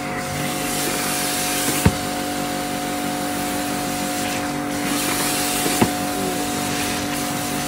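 Kärcher K7 pressure washer running: a steady motor hum under the hiss of the water spray, with two sharp clicks.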